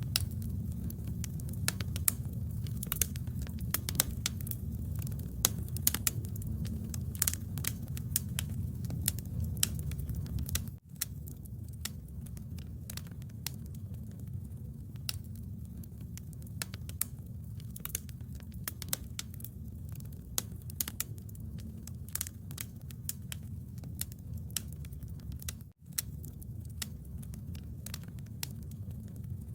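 Bonfire crackling, many irregular sharp snaps over a low steady rumble. The sound cuts out for an instant twice.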